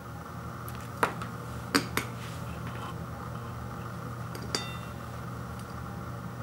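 A few sharp clicks as a frosted toaster pastry is broken and its pieces knock against a ceramic plate; the last click, about four and a half seconds in, leaves a brief ring from the plate. A steady low hum underneath.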